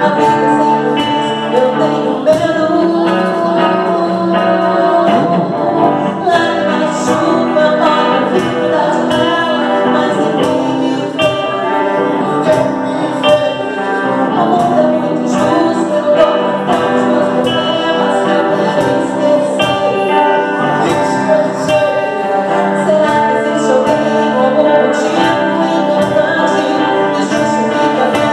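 Live band playing a song: a woman singing lead with a man's voice alongside, over electric guitar and a cajón keeping a steady beat.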